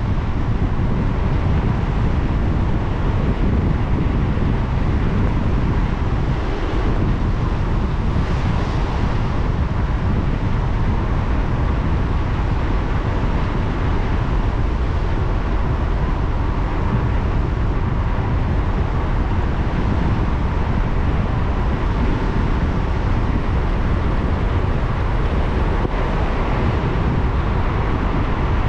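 A car driving on wet roads: steady road and tyre noise that carries on without a break.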